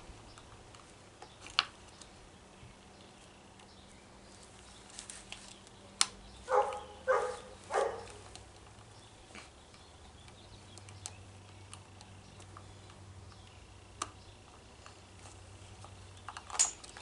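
Handling of a string trimmer's plastic bump head: faint, scattered clicks and taps, with three short squeaky creaks about six to eight seconds in.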